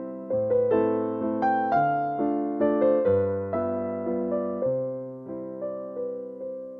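Background piano music: notes struck one after another, each fading away, in a gentle melody over chords.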